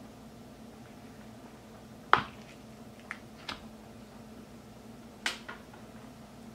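Flexible silicone baking mold being peeled off baked madeleines and set aside: one sharp tap about two seconds in, two lighter clicks soon after, and another tap a little past five seconds, over a faint steady hum.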